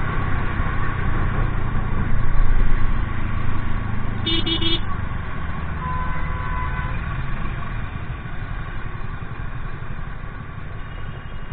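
Ntorq scooter riding in heavy traffic and slowing nearly to a stop, with engine and road noise that gets quieter as speed falls. A short horn beep sounds about four seconds in.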